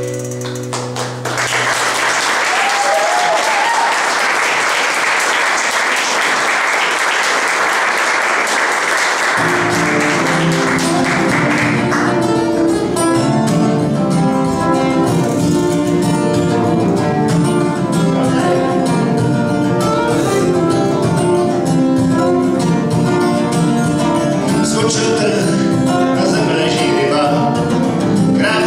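Audience applause for about ten seconds after a folk tune ends, then the band starts the next tune: a guitar comes in about nine seconds in, and fiddle and guitar play on from about twelve seconds.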